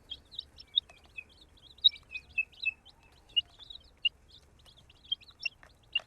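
Several baby chicks peeping: many short, high chirps overlapping, a few every second.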